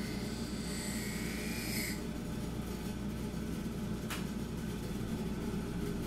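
Baldor bench buffer motor running steadily with a low hum while a knife blade is stropped on its slotted cardboard wheel charged with white rouge. The blade on the wheel adds a high, thin whine that stops about two seconds in. A single sharp click follows about four seconds in.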